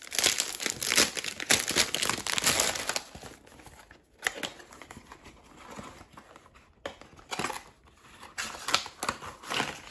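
Plastic wrapping crinkling loudly as it is torn and peeled off a cardboard perfume box for about three seconds, then quieter rustling and handling as the box's top flap is opened.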